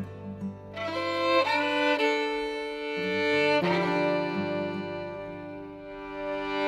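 Background music: a violin playing held notes over a low accompaniment.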